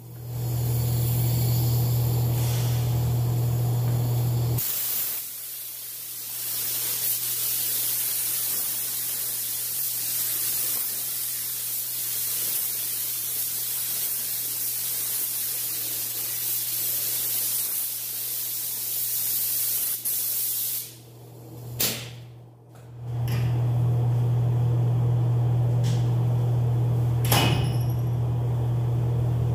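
Compressed-air spray gun spraying clear coat, a long steady hiss lasting about sixteen seconds. A low steady hum comes before and after it, and a few short clicks fall near the end.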